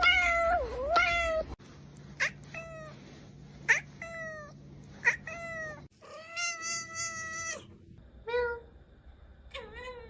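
Cats meowing over and over: two drawn-out meows at the start, a string of short meows in the middle, one longer meow of about a second and a half after that, and a few short ones near the end.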